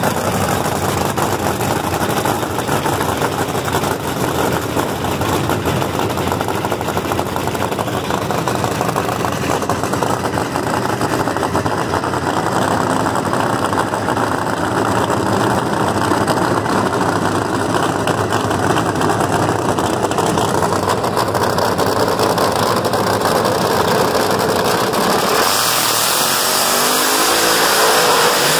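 Drag race car's engine running loud and rough. About 25 seconds in it revs hard in a burnout, the rear tires spinning.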